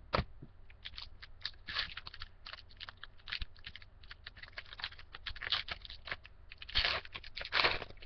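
Foil trading-card pack wrapper crinkling and crackling as it is handled and torn open, an irregular run of crackles that grows louder about two seconds in and again near the end.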